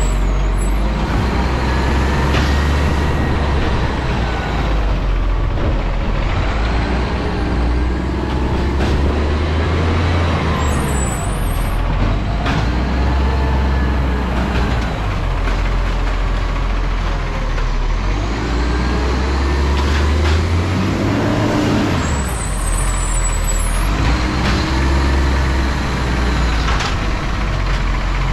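Diesel garbage truck engine running, revving up and falling back in repeated cycles every few seconds, with a steady deep rumble underneath.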